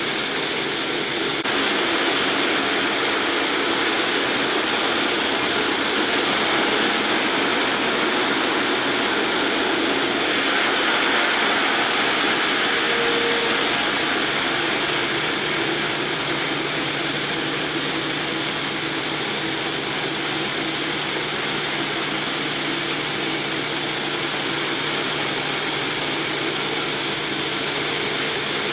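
Multi-blade granite block cutter running, its large segmented circular saw blades cutting through a granite block with a loud, steady, even grinding noise and a faint low hum underneath.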